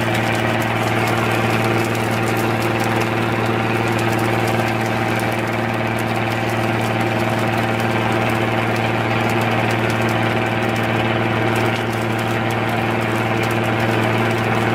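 Fishing boat's engine running steadily: a constant low hum with even overtones and no change in speed.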